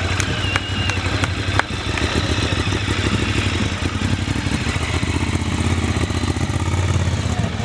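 Motorcycle engine idling, a steady low rumble, with a few sharp clicks and knocks in the first two seconds.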